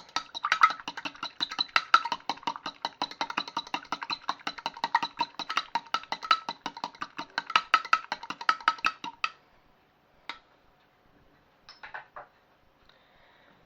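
Milk, egg and vanilla being beaten in a jug, the utensil clinking rapidly against the sides, about six strokes a second. The beating stops about nine seconds in, followed by a few single taps.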